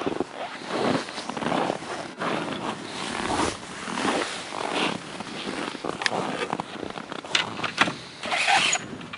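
Irregular scraping, rustling and clattering handling noises, with a few sharp clicks near the end, as the saw blade is set in place on a homemade chainsaw mill.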